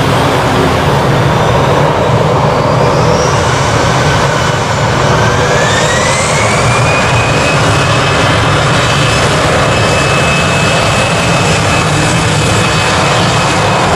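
Airbus A320's CFM56 turbofan engines spooling up for take-off: loud rushing jet noise with a whine that rises in pitch about four to seven seconds in, then holds steady at take-off power.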